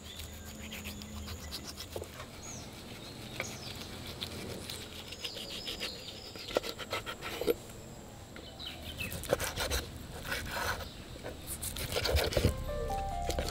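A large knife cutting raw fish steaks on a wooden chopping board: scattered sharp cuts and knocks of the blade against the board, coming thicker and louder in the second half. A few music notes begin near the end.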